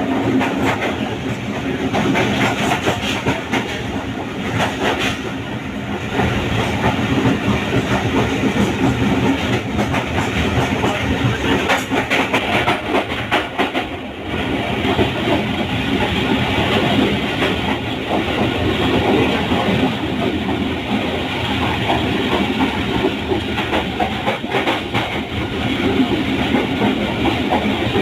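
Passenger train running at speed, heard from aboard: a steady rumble with the wheels clattering over the rail joints and the coach rattling.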